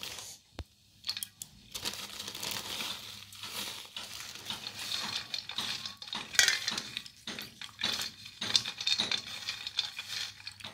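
Broken clay pot pieces being swished and rubbed by hand in a steel basin of muddy water: splashing, with shards clinking against each other and the metal bowl, in quick irregular clicks that start about a second in.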